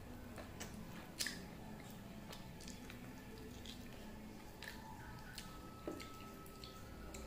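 Eating by hand: wet mouth smacks and chewing clicks, with fingers squishing and mixing biryani rice on a steel plate. One sharp smack about a second in is the loudest.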